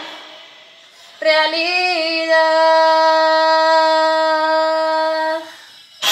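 A woman's singing voice holds one long note with little or no accompaniment. It comes in about a second in with a slight waver in pitch, then stays steady for about three seconds before stopping.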